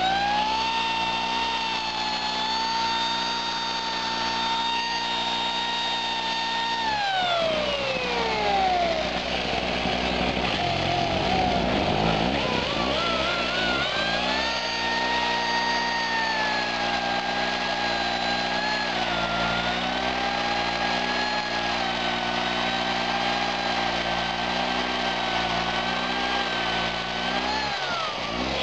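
An electric chainsaw's motor runs up to a steady high whine, winds down about seven seconds in, then runs up again from about a third of the way through and holds, wavering slightly, until it winds down near the end. Under it a small two-stroke Chicago Electric 800-watt generator engine runs steadily, carrying the saw's electrical load.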